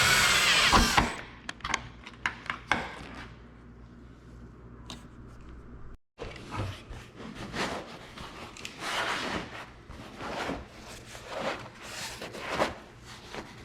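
Power drill running for about the first second, then stopping. Then scattered clicks, knocks and rubbing as the soft top's fittings are handled.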